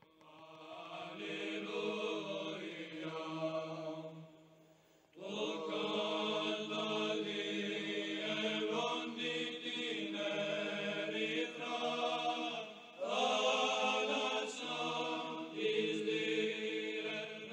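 Slow choral chant with long held notes, breaking off briefly about four seconds in before resuming.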